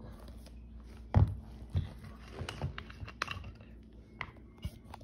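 Handling a glass mason jar of vanilla extract while working its screw-band metal lid open: scattered clicks and knocks, with one heavier thump about a second in.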